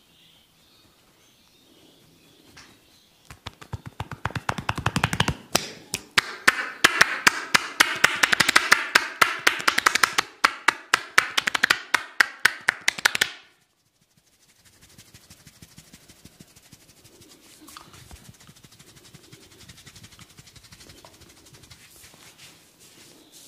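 Rapid percussive hand strokes of a head massage: the barber's hands slapping and tapping on the head in a fast run of sharp claps, several a second, growing louder and then stopping abruptly. After it comes a much fainter, soft rustle of hands working on the head.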